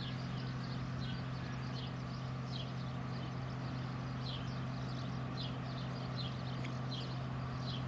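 A steady low mechanical hum, with a small bird chirping over it in short falling chirps, two or three a second.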